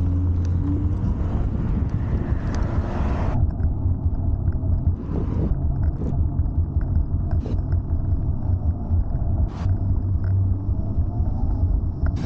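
Steady low rumble of wind on the microphone and tyre noise while riding an electric scooter, with a few short clicks. A higher hiss drops away about three seconds in.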